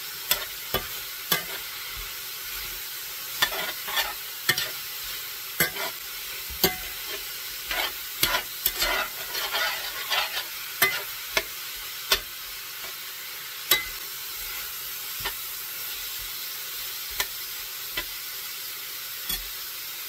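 Elk meat sizzling in a frying pan on high heat, with a spoon clacking and scraping against the pan as the meat is stirred and pressed flat. The clacks come thick and fast in the middle and thin out to a few near the end. The sizzle is the sign that most of the liquid has cooked off and the meat is starting to brown.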